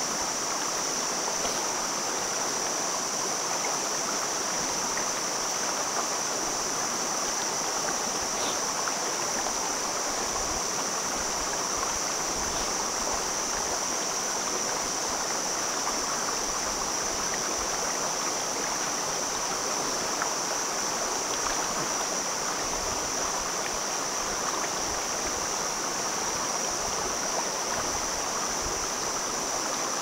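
Shallow mountain stream rushing over rocks and between boulders: a steady, even rush of water with no pauses. A constant high-pitched hiss runs over it.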